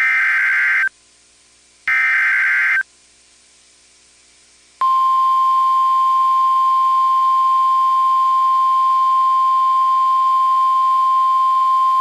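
NOAA Weather Radio Specific Area Message Encoding (SAME) alert header: two one-second bursts of screeching digital data, about a second apart. About five seconds in, the steady 1050 Hz warning alarm tone begins, signalling that a weather warning is about to be broadcast.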